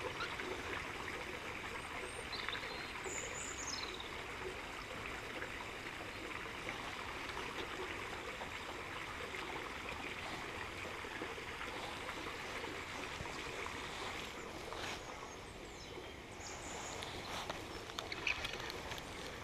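Steady rush of running water, with a bird chirping briefly a couple of times and a few faint ticks near the end.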